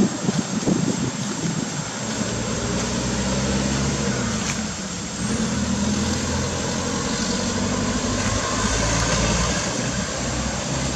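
Motor vehicle engine idling steadily, its pitch shifting slightly a couple of times. A steady high whine sounds throughout.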